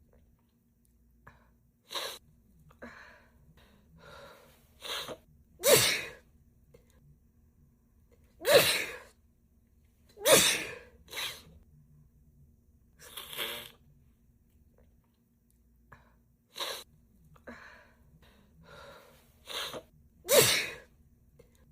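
A woman sneezing over and over in a fit: a string of sharp sneezes a second to a few seconds apart, with smaller gasps and sneezes between them. The loudest come about six, nine, ten and twenty seconds in.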